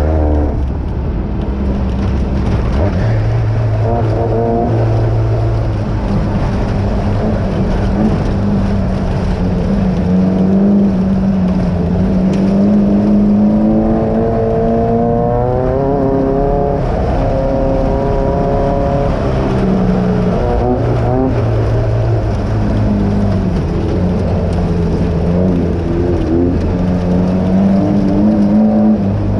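Off-road desert race car's engine heard from inside the car, rising in pitch as it revs up and dropping back at each shift, over a steady haze of ride noise.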